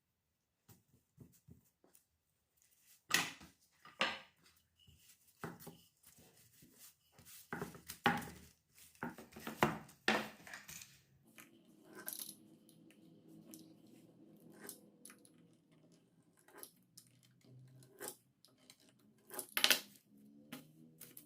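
Kitchen handling sounds during food preparation: an irregular run of scrapes, rustles and light knocks, with a few sharper knocks, the loudest near the end.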